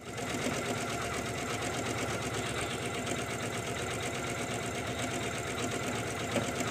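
Usha Janome Memory Craft 450-E computerized embroidery machine starting up and stitching an embroidery design, its needle mechanism running in a fast, even rhythm.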